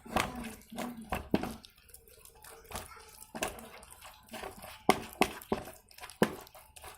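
Irregular crinkling, squishing and sharp knocks as carp bait ingredients are handled and mixed by hand in a container.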